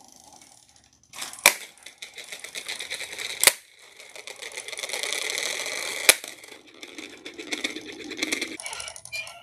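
A VEX IQ plastic disc dispenser's purple hand wheel being spun, its plastic parts clattering in a fast run of clicks, with three sharp clacks of plastic discs dropping out onto the field.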